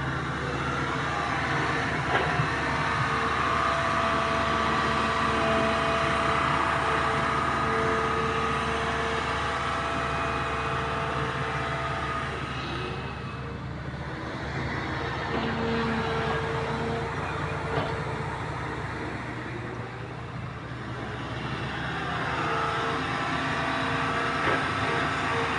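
Komatsu D85SS crawler bulldozer running under load, its diesel engine working steadily with high-pitched metallic squealing from the moving steel tracks. The sound eases off about halfway through and builds up again near the end.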